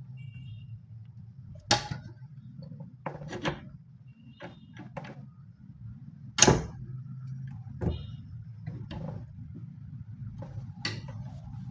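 Irregular knocks and clunks of hand work on a wooden cabinet while a drawer lock is being fitted, the loudest about six and a half seconds in, over a steady low hum.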